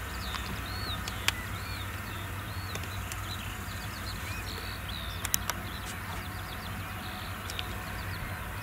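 Small birds chirping repeatedly over a steady low rumble of distant farm machinery, with a few sharp clicks about a second in and around five seconds in.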